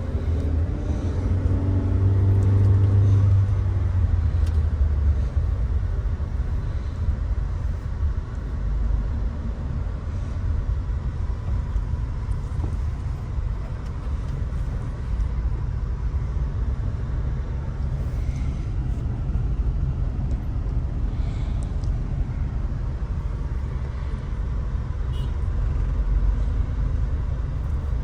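Steady low rumble of a car driving in traffic, engine and road noise, with a droning pitched engine hum in the first few seconds.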